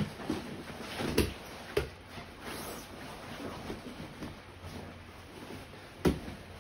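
Grappling with a gi-clad dummy on foam mats: fabric rustling and bodies shifting, with a few dull thumps, the loudest about a second in, just under two seconds in, and near the end.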